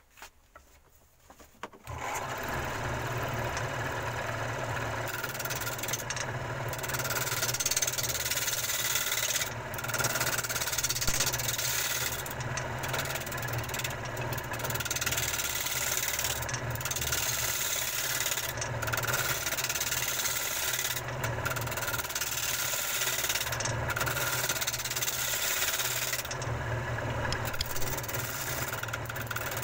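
Electric woodworking machine starting about two seconds in and running steadily on the wood, its cutting hiss dropping away briefly every few seconds.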